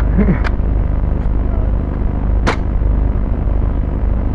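Steady low rumble on the camera's microphone, with one sharp crack about two and a half seconds in.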